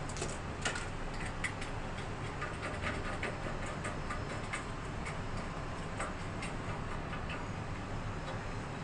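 Scattered light clicks and taps, a few a second, from a hand tool working a metal fitting on a tiled shower wall, over steady low background noise.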